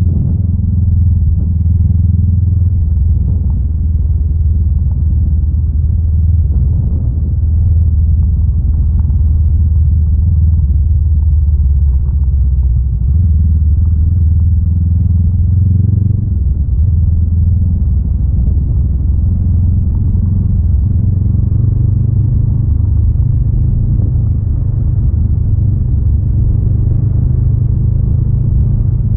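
Honda Rebel 500's 471 cc parallel-twin engine running steadily under way. Its low note shifts pitch a couple of times around the middle as the throttle changes.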